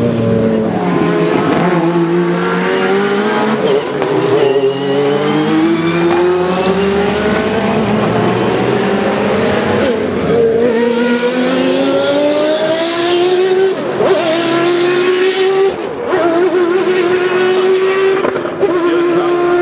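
Group C sports-prototype race car engines running at full throttle, more than one at once. Their pitch climbs steadily through each gear and drops at the shifts, which come every few seconds.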